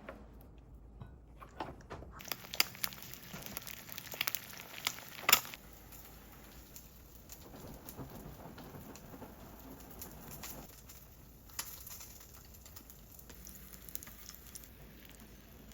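Kitchen cooking sounds: a run of sharp clicks and taps for a few seconds over a light crackling patter, the patter fading about ten seconds in, with one more tap later.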